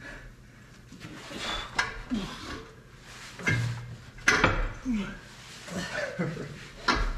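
Several sharp metal clanks and knocks as a transmission is wrestled into place under a truck, with short grunts or mumbles of effort in between.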